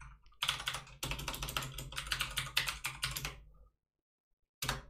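Computer keyboard typing: a quick run of keystrokes for about three seconds, then a pause and a single key press near the end.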